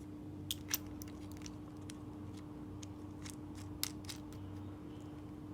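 Light, irregular clicks and ticks from a spinning reel being handled and cranked while fishing line is spooled onto it, over a faint steady hum.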